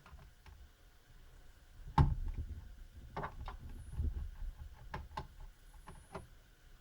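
Handling of a screwdriver and a laptop's hard plastic case: a sharp knock about two seconds in, the loudest, then scattered light clicks.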